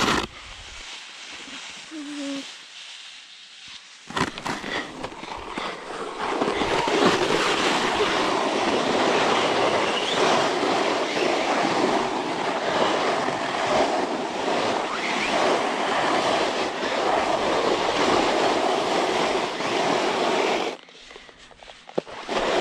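A snowboard sliding down snow with the rider sitting on it: a steady rushing scrape of the board on snow mixed with wind on the helmet camera's microphone. It starts about four seconds in and stops suddenly near the end.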